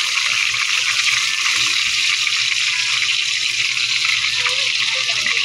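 Tuna steaks frying in hot oil, a steady, unbroken sizzle.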